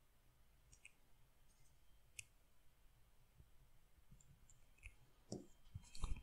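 Near silence broken by a few faint, scattered clicks and light taps from painting with a fine brush, with a slightly louder knock and click near the end.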